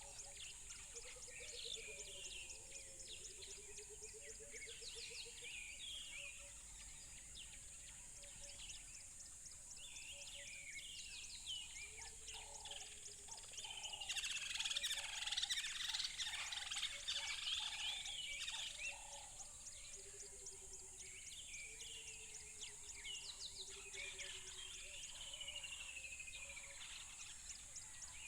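A chorus of many wild birds chirping and trilling over one another, busiest and loudest in the middle. Lower, wavering calls come and go underneath, and a steady high hiss runs throughout.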